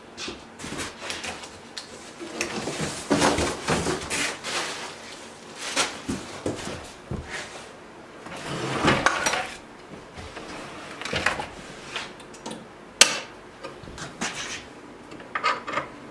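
Irregular clunks, knocks and rattles of a new Bosch 12-inch glide miter saw being handled and set up on a wooden workbench, with one sharp click about 13 seconds in.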